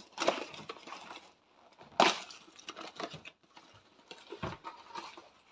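Cardboard packaging being torn open by hand, with paper and card rustling and crinkling in irregular bursts; the loudest rip comes about two seconds in.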